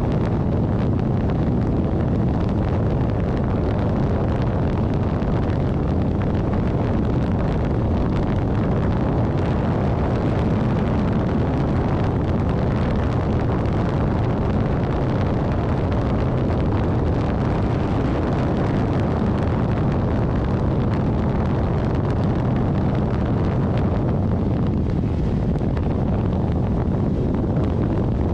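Steady rumble and hiss of a vehicle travelling on a wet road in rain, with wind buffeting the microphone.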